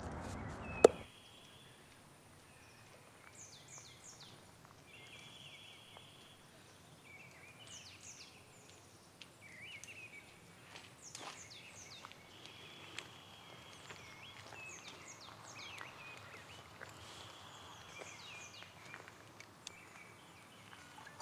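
A sharp click about a second in, where a noisy outdoor background cuts off; then woodland birdsong, short chirps and trills from several birds, over a faint steady high tone.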